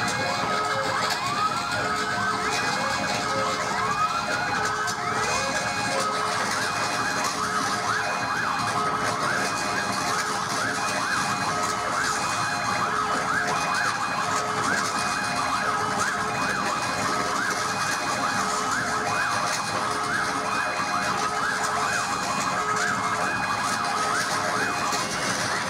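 Live electronic music: siren-like rising pitch glides repeating about every second and a half, which thicken after a few seconds into many quicker overlapping sweeps. Underneath is a layered steady drone, with short high beeps pulsing evenly.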